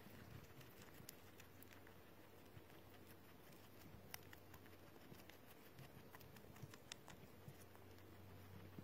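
Guinea pig chewing leafy greens: faint, irregular crunching clicks over a low steady hum.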